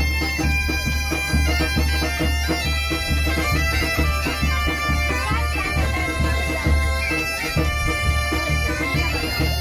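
Background music: a melody of held notes over a steady, evenly pulsing low drone.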